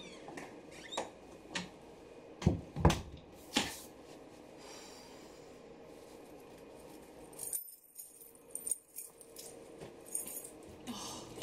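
A door being opened and someone coming in, with several knocks and thumps (the loudest three close together about two and a half to three and a half seconds in) and light rustling and clattering of handling.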